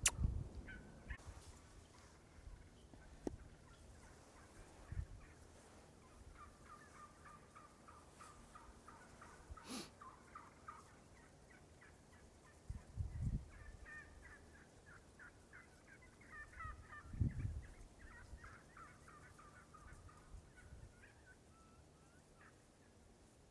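Faint bird calls in two long runs of rapid repeated notes, with a few low thumps in between.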